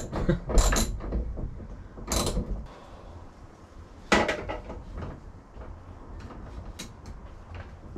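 Seatbelt anchor bolt being tightened with a hand tool into the Land Cruiser FJ40's steel hardtop: scattered metal clicks and knocks, the sharpest about four seconds in. The bolt is pushing a dent into the outside of the roof, which the owner puts down to a missing washer.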